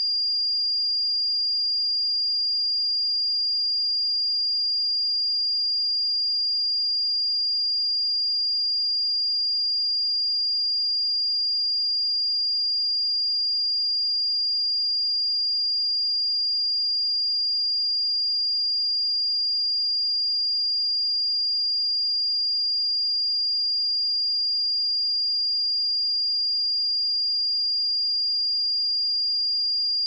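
A pure 4808 Hz sine-wave test tone, a single high-pitched steady whistle at constant level.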